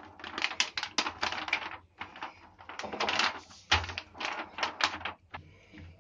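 Wooden rolling pin rolling back and forth over dough sandwiched in a greased plastic sheet, giving runs of crackling, clicking plastic in several bursts with short pauses.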